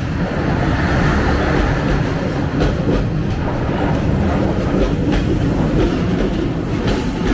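A train passing at close range: a steady heavy rumble of wheels on the rails, with scattered clacks over the rail joints.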